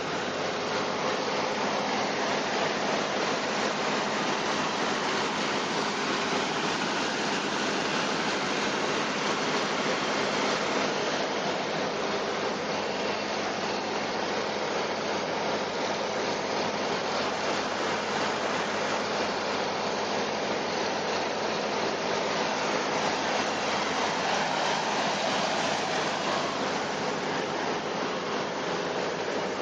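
Flood-relief pumps running steadily: an even rushing noise with a low, constant hum beneath it.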